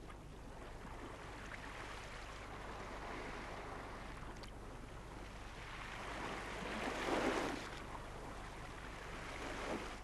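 Faint wash of the sea and surf, an even hiss that swells briefly about seven seconds in.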